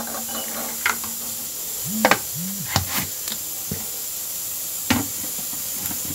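Plastic blender jug being handled and lifted, giving a scatter of sharp knocks and clicks over a steady background hiss.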